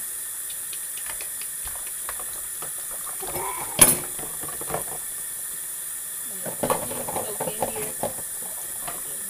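Dishwashing in a kitchen sink: dishes and utensils splashing in soapy water and knocking together, over a steady hiss. A single sharp knock comes about four seconds in, and a run of clattering and sloshing follows near the end.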